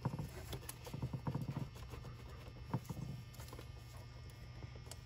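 Light knocks and scuffs of hands pushing a rubber hose with a band clamp onto a catch-can fitting, mostly in the first three seconds, over a faint steady low hum.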